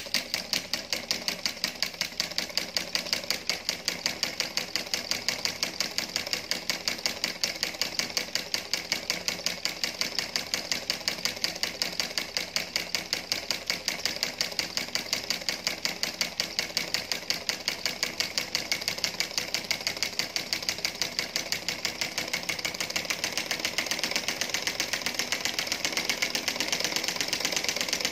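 Homemade solenoid engine running: the coil-driven plunger in its syringe cylinder turns the aluminium flywheel, giving a rapid, even mechanical clicking with every stroke, several a second.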